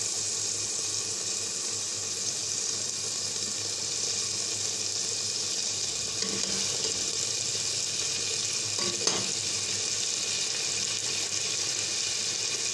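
Beef frying in oil in an open pressure cooker once its cooking water has dried off, the bhuna stage: a steady, even high sizzle. A single clink of a spoon against the pot about nine seconds in.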